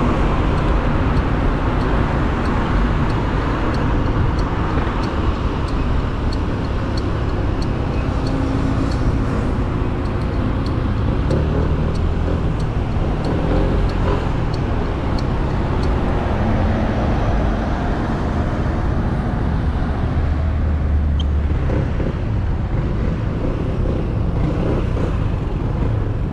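On-board sound of a 155 cc motorcycle ridden through traffic: the engine runs under steady wind and road noise, easing off as the bike slows near the end. For several seconds in the first half there is a light, regular ticking, about two a second.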